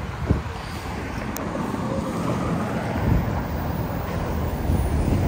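Wind buffeting the microphone over a steady rumble of road traffic, growing a little louder toward the end.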